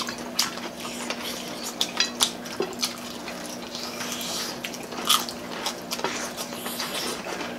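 Close-up eating sounds of people chewing crispy deep-fried chicken and rice: irregular sharp clicks and smacks of chewing and biting, over a faint steady hum.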